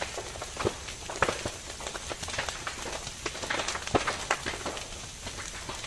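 Dry grass and brush burning in an open fire, crackling with many irregular sharp pops over a steady hiss of flames.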